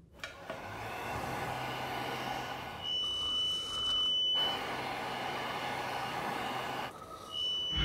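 Push-button electric hand dryer blowing, a steady rush of air with a low motor hum, twice. In between and near the end comes a steady high electronic beep.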